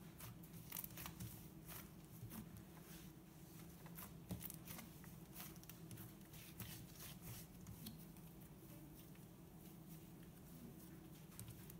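Soft, creamy cloud-cream slime kneaded and folded by hand, giving faint, irregular sticky crackles and small clicks as it is pressed and pulled.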